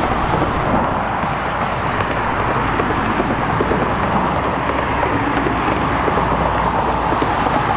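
Steady road traffic noise from vehicles crossing a bridge, an even hiss of tyres with no breaks.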